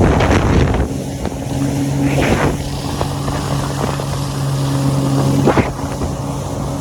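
Jet ski engine running steadily, with a few short rushes of water spray and slapping waves: near the start, about two seconds in, and near the end.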